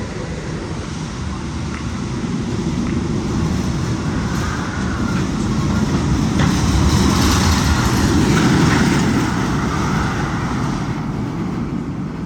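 Magnum XL 200 steel roller coaster train rumbling along its track, growing louder to a peak about two-thirds of the way through and then fading.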